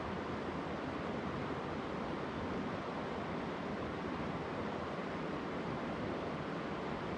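Steady rush of a flowing mountain river: an even, unchanging hiss of running water with no distinct events.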